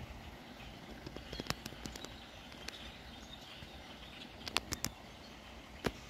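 A feeding flock of blackbirds calling: a faint, steady chatter with short, sharp chips scattered through, bunched about a second and a half in and again near the end.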